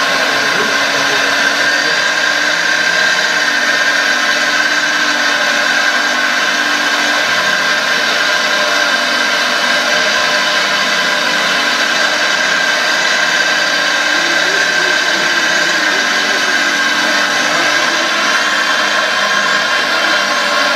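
Hydraulic pump and drive of a radio-controlled Liebherr R 980 scale excavator running with a steady whine as the boom and bucket dig into soil.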